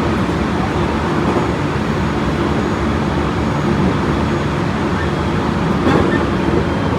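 Interior running noise of a Tobu 30000 series electric train at speed: a steady rumble of wheels on rail and car body with a faint steady hum from the drive. A light knock about six seconds in.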